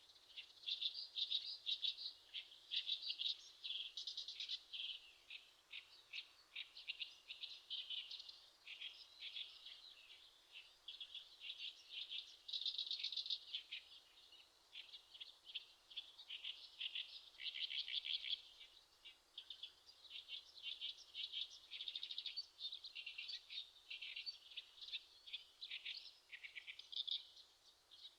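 Eurasian skylark singing its long, unbroken song, a fast, rambling stream of high chirps and trills.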